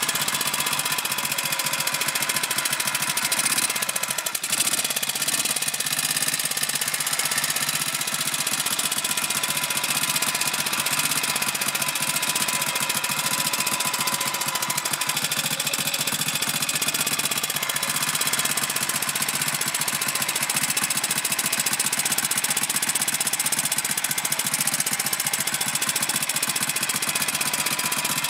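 BSA M20's 500 cc single-cylinder side-valve engine running steadily with an even rapid beat. The owner is chasing a curious noise in it that stops and starts again and is hard to hear.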